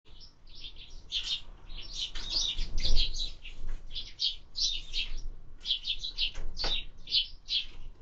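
Eurasian tree sparrows chirping in a fast, dense run of short high chirps, the noisy calling of birds squabbling at a feeder. A dull bump about three seconds in is the loudest moment.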